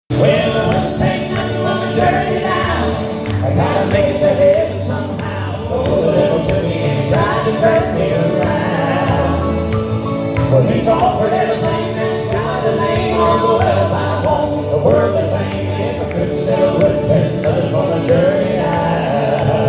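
Southern gospel music playing: a song's introduction with a steady bass line.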